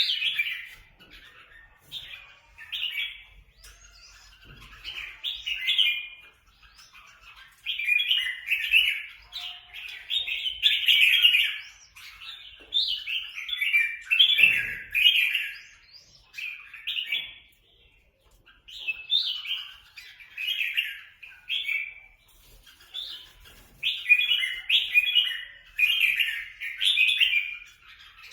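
Red-whiskered bulbuls squabbling, giving loud bursts of quick chirping phrases one after another with short gaps between them.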